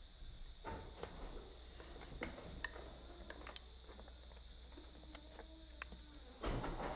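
A dog stepping off its bed and walking across a wooden deck: light clicks of claws on the boards and faint jingling of collar tags, with a louder close rustle right at the microphone near the end as the dog reaches it.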